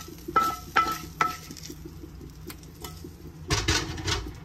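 A spoon spreading cooked ground sausage in a casserole dish: three quick knocks of the spoon early on, each ringing briefly, then a burst of scraping strokes near the end.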